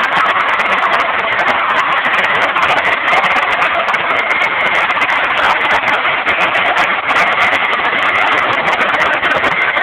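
Car sound systems playing at full volume, so loud the recording turns them into a steady, distorted wash of sound with no clear beat.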